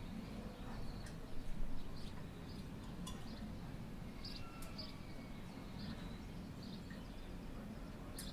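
Outdoor ambience: scattered short bird chirps over a steady low rumble, with a brief louder sound about a second and a half in.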